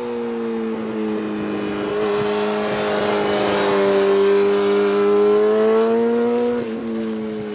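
600cc racing motorcycle passing under power: a steady engine note that grows louder as the bike goes by, then dips in pitch and loudness near the end.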